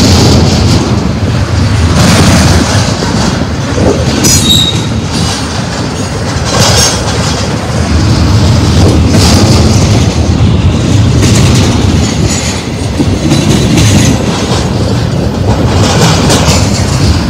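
BNSF intermodal freight train's double-stack well cars rolling past close by: a steady, loud rumble of steel wheels on rail, with a clack every two seconds or so as wheels pass over the track. A brief high wheel squeal comes about four seconds in.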